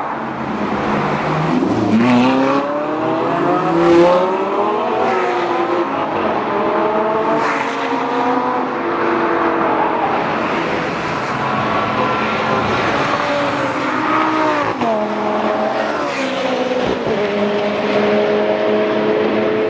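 Lamborghini Gallardo LP560-4's V10 engine and exhaust revving up about two seconds in, loudest around four seconds. The engine then holds its pitch and eases off, dropping in two steps near the end.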